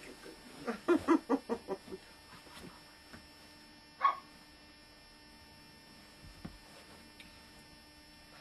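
Dog barking: a quick run of about seven barks about a second in, then one more sharp bark about four seconds in.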